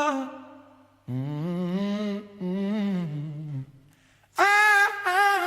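Unaccompanied vocal humming in drawn-out phrases with vibrato. Low hummed lines about a second in, then a higher sung phrase near the end.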